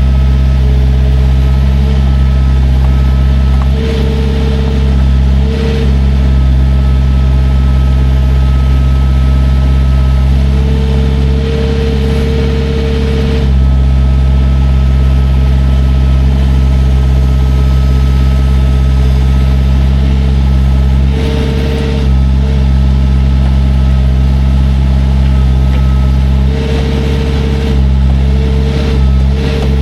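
Diesel engine of a piece of heavy equipment running steadily under load, with a higher steady tone that comes and goes every few seconds.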